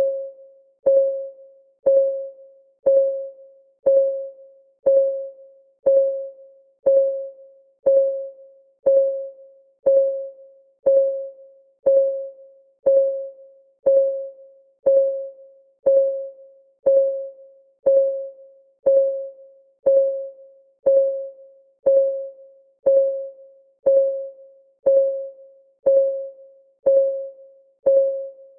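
Clock ticking sound of a countdown timer: one sharp tick every second, each with a short pitched ring that fades before the next.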